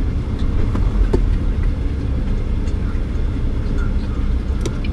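Cab noise inside a moving Volvo 780 semi truck: a steady low engine and road rumble with a few light clicks.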